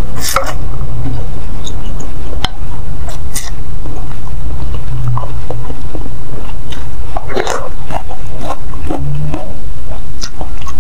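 Close-miked chewing and slurping of spicy instant noodles: irregular wet mouth clicks and smacks, with a noodle slurp at the start, over a steady low hum.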